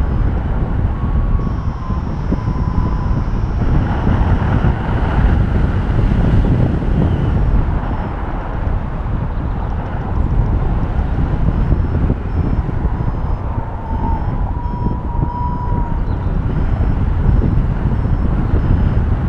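Airflow rushing over the microphone of a paraglider in flight, with an electronic variometer faintly beeping and whistling a wavering tone, mostly in the second half, as it signals lift in a thermal.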